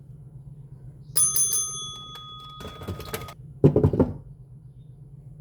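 A single bright bell ding that rings on for about two seconds, followed by a brief, louder clatter of clicks.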